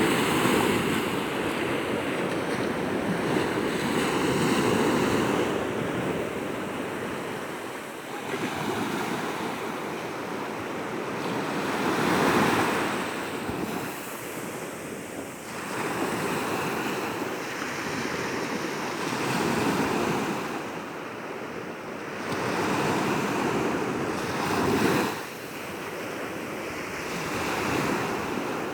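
Sea surf washing onto a beach, the rush of the waves swelling and easing every few seconds.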